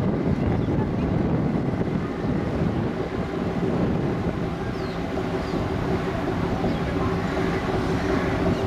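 Steady low rumble of running engines, with wind buffeting the microphone; a steady engine hum stands out from about three seconds in.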